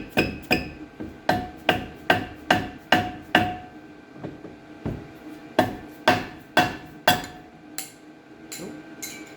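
Dead blow hammer striking a Jaguar XF's vented front brake disc to break it free from the hub: a long run of blows, about two to three a second with a few short pauses, each leaving a brief metallic ring.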